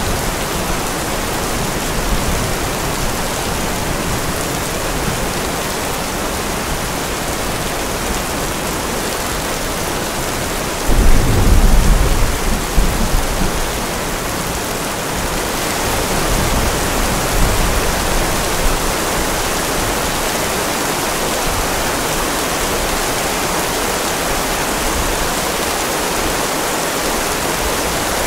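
Steady rain, with a sudden rumble of thunder about eleven seconds in that fades away over two or three seconds.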